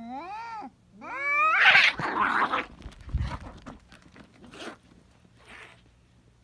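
Two domestic cats fighting: a long drawn-out yowl bending up and down, then a second rising yowl that breaks into a loud harsh screech as they lunge at each other. Scuffling and softer hisses follow as they grapple.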